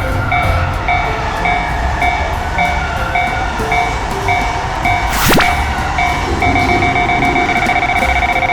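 Railroad crossing warning bells ringing in a repeating ding, about two strikes a second, over the rumble of a passing train. About five seconds in a whistle-like tone falls sharply in pitch. From about six and a half seconds the bell turns to a fast, nearly continuous ringing.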